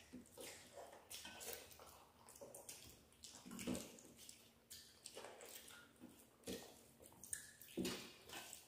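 Quiet, wet eating sounds: mouths chewing and smacking, and fingers squishing rice and curry on steel plates, in short irregular clicks.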